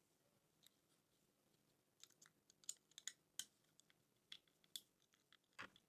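Faint, irregular small clicks and scrapes of a small screwdriver working the screws on a model locomotive's plastic tender. The clicks start about two seconds in, with a slightly louder click near the end.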